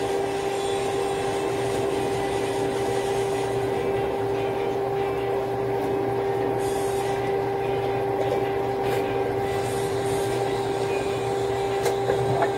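Steady hum at one constant pitch with even fan hiss from a running induction cooktop and its cooling fan. A few faint light taps of a spoon against a plastic cup come through over it.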